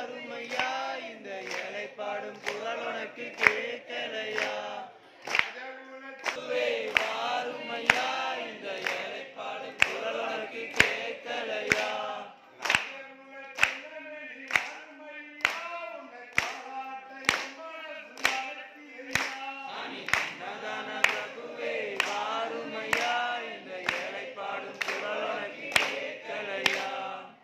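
A group of devotees singing a Tamil bhajan to Ayyappan together, with sharp time-keeping beats about once a second throughout. The voices thin out a few seconds in and come back fuller near the end.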